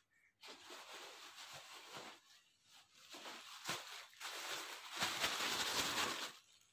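Rustling of clothing being handled, in two spells, the second louder one starting about four and a half seconds in and lasting nearly two seconds.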